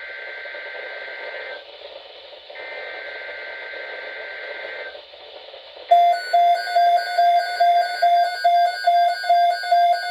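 NOAA Weather Radio's digital SAME alert header through a weather radio receiver: two buzzy two-tone data bursts of about two seconds each, a second apart. About six seconds in, the receiver's own alarm starts beeping loudly, about two beeps a second, signalling an incoming alert, here a tornado watch.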